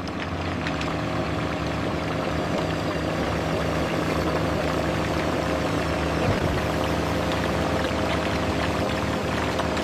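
Heavy machinery engine running steadily, a low even hum with a noisy rumble over it.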